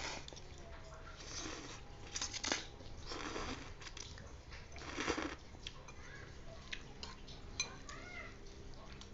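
Slurping and chewing of boiled instant noodles, in several short noisy bursts in the first five seconds, then quieter eating.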